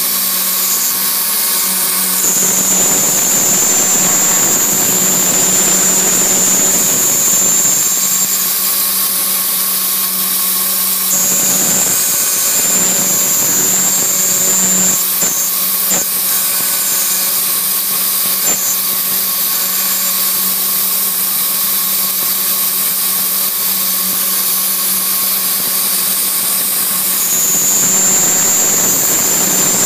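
CNC milling spindle running, its small end mill cutting pockets in a plastic plate: a steady hum under a high whine that comes and goes, dropping out twice.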